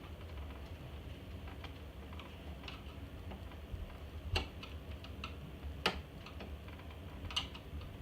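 Scattered small clicks and taps of parts being handled inside an iMac G3, as a speaker that won't slide off is worked at. Three sharper clicks come in the second half, over a steady low hum.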